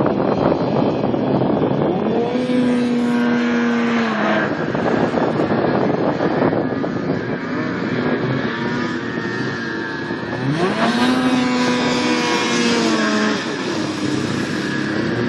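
Snowmobile engines running hard as the sleds skim across open water, the pitch climbing and holding high about two seconds in and again about ten seconds in, then dropping back.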